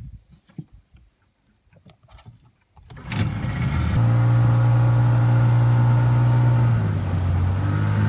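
Faint clicks and knocks, then about three seconds in the outboard motor of an inflatable boat comes in abruptly, running steadily underway with a low hum over water and wind noise. Its pitch drops a little a few seconds later.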